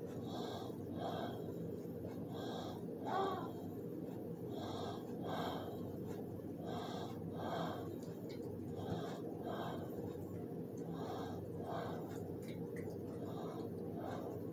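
Steady breathing close to the microphone, one in-and-out breath about every two seconds, over a steady low hum.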